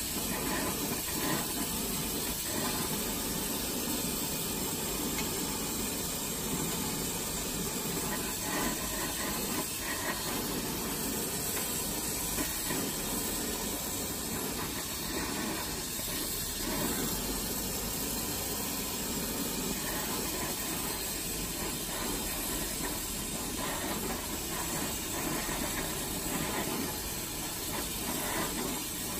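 Glassblowing bench torch flame hissing steadily.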